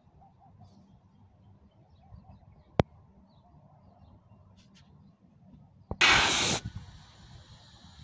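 Faint bird chirps over a quiet background and a sharp click about three seconds in, then about six seconds in a loud half-second blast of hissing gas that trails off into a fainter hiss: nitrogen being blown through the AC outdoor unit's refrigerant pipes to flush out a blockage.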